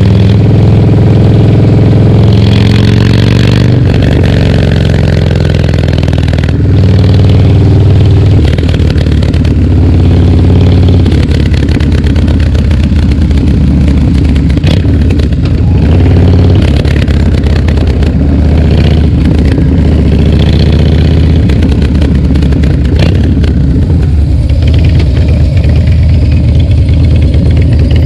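Harley-Davidson Dyna Street Bob's V-twin running loud through a FAB28 aftermarket exhaust while riding, its revs rising and falling several times.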